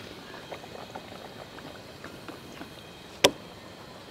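Batter-coated potato slices deep-frying in hot oil: a steady sizzle with small crackles. One sharp knock about three seconds in.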